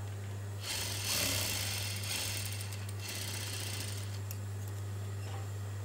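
Juki industrial lockstitch sewing machine running a short seam for about two and a half seconds, starting under a second in and then stopping, over a steady low hum. Near the end come a couple of light clicks as scissors trim the thread.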